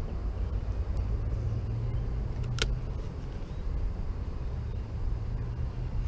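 Low, steady rumble of distant road traffic, swelling a little in the first half, with one sharp click about two and a half seconds in.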